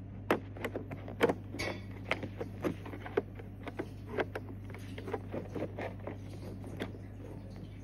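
Irregular sharp clicks and knocks of plastic Lego train track pieces being handled and pressed together, over a steady low hum.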